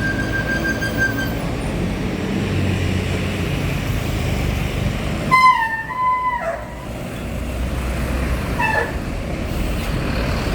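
Bus engine rumbling, and about five seconds in a telolet multi-tone horn plays a short stepping melody of a few notes. A brief falling horn note follows near the end.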